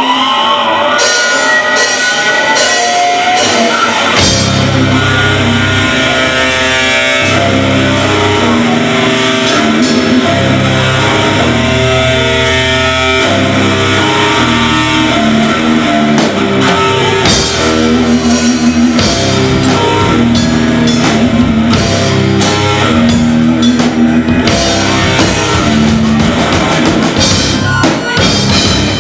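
Live metal band playing loud: distorted electric guitar, bass and drum kit. The guitar slides up at the start, cymbals come in about a second in, and the heavy bass and kick drum enter about four seconds in.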